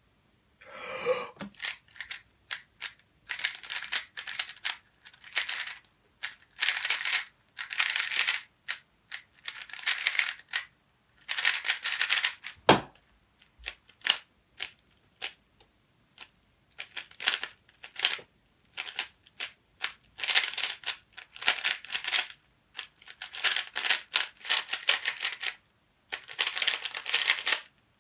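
A 3x3 Rubik's cube being turned at speedsolving pace: rapid runs of plastic clicking and clacking, broken by a few short pauses.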